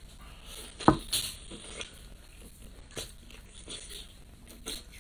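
Close-up eating sounds: biting and chewing food, with one sharp crunch about a second in and a few smaller crunches and wet mouth clicks after it.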